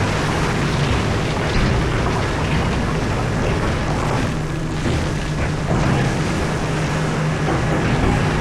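Komatsu PC4000 hydraulic mining excavator working: its engine runs steadily under load while rock crunches and scrapes against the bucket, with a few heavier knocks. The bucket is grinding on rock left unbroken by poor blasting.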